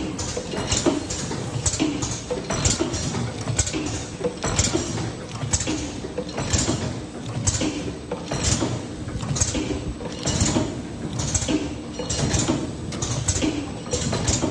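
SJ-Y1 liquid filling and packaging machine running, its mechanism clacking in an even rhythm of about three strokes every two seconds over a steady mechanical running noise.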